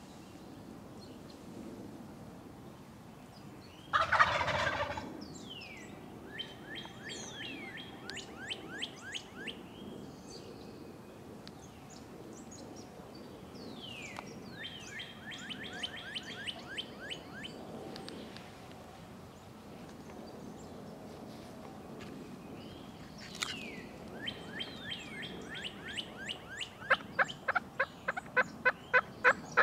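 A wild turkey gobbler gobbles loudly once, about four seconds in. Three runs of quick, high, repeated calls follow from a hunter's turkey call worked softly to draw the drifting birds back, and the last run grows louder near the end.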